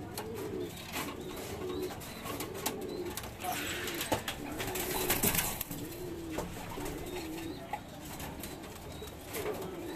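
Racing pigeons cooing in the loft: low, wavering coos repeated one after another, with scattered clicks and a stretch of rustling about halfway through.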